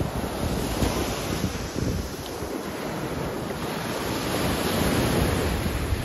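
Ocean surf washing onto a sandy beach, with wind buffeting the microphone in a low, gusty rumble. The wash swells louder in the second half.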